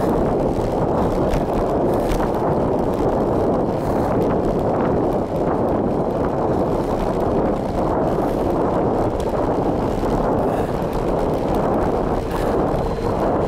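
Wind buffeting the microphone of a camera on a bicycle coasting fast downhill: a steady, loud rush of wind with scattered light ticks and knocks.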